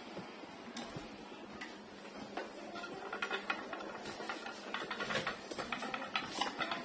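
Sharp split air conditioner's indoor unit starting up: faint mechanical clicking and rapid ticking, busier from about three seconds in, typical of the louver motor swinging the air flap open.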